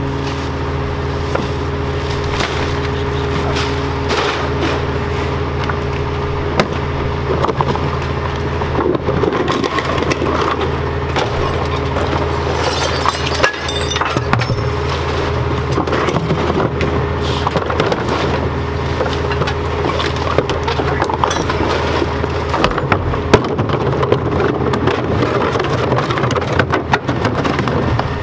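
Peterbilt Heil rear-loader garbage truck's engine running steadily, with repeated knocks and clacks of plastic garbage cans being tipped and banged against the rear hopper.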